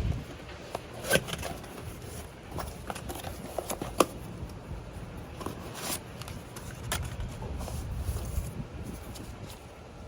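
A parcel being opened and its packaging handled: rustling and crinkling with scattered sharp clicks and taps, the strongest about a second in, at the middle and a little after.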